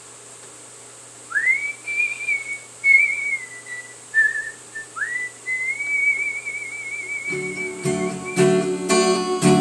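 A person whistling a melody in two phrases, each opening with an upward slide and then wavering around one high pitch. Acoustic guitar strumming comes in about seven seconds in.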